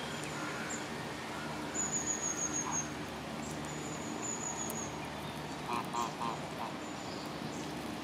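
Waterbird calling: a quick run of about four short nasal calls a little past the middle. Thin high-pitched whistles of about half a second sound several times, over a steady low hum.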